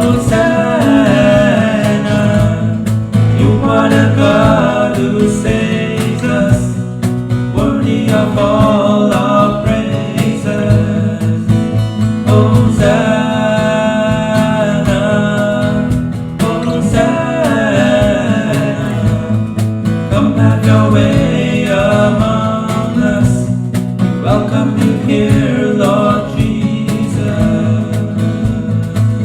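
Contemporary worship song played by a band led by acoustic guitar, with singing.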